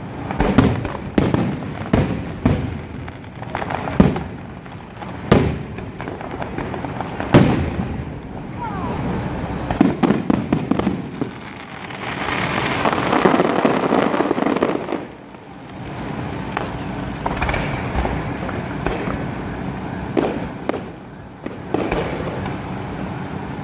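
Aerial fireworks display: a rapid series of sharp shell bursts, then a few seconds of dense crackling about halfway through, then more scattered bangs.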